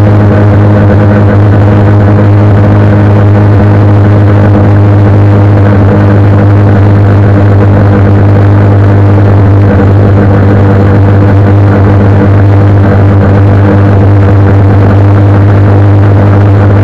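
Honda CBR 125R's single-cylinder four-stroke engine running at a steady cruising speed, its note holding one pitch throughout, with wind noise on the bike-mounted microphone.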